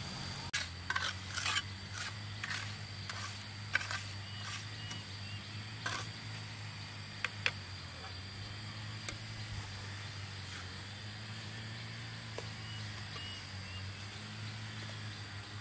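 Masonry trowel scraping and knocking on wet mortar and stones, a run of short scrapes and taps through the first half that thins out later, over a steady low hum.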